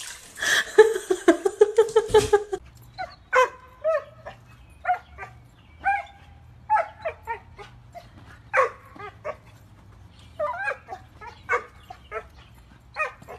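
A small dog barking in short, sharp yips, about fifteen at irregular spacing, while it jumps about on a trampoline. The barking follows a couple of seconds of a different voice-like sound at the start, which is the loudest part.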